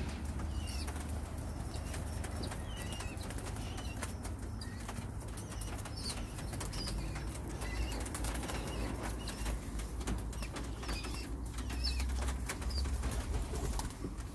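Pigeons flapping their wings inside a wire-mesh loft, with many short wing claps and a scattering of short high chirps.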